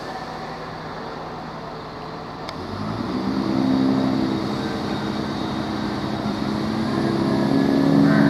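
Class 171 Turbostar diesel multiple unit's underfloor diesel engines running steadily. About three seconds in they rev up as the train pulls away, the note rising and getting louder, with a further rise in power near the end.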